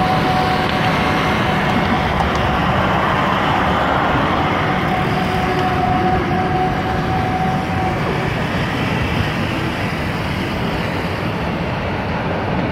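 Steady road and engine noise from a moving road vehicle, heard from on board, with a faint steady whine that stops about two-thirds of the way through.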